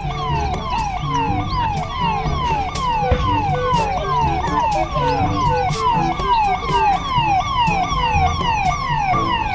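Toy police car's electronic siren: a falling wail repeating a couple of times a second, over a low rumble.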